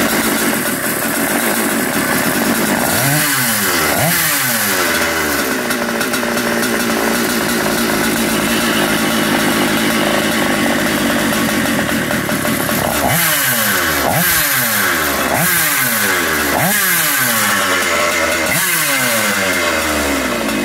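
SUDAM 125cc two-stroke kart engine, bored out to 135cc with twin carburettors, running loud and being blipped by hand. Two quick revs come about three seconds in, then five more from about thirteen seconds, each rising fast and sinking back.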